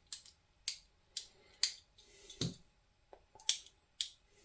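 Replacement lamp socket switch being worked by hand, giving a string of sharp mechanical clicks about every half second, seven in all with a short pause near the end. The new switch is being tried for its feel.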